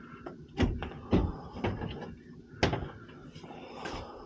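A few sharp knocks and clacks, about four spread over a few seconds, over a low background.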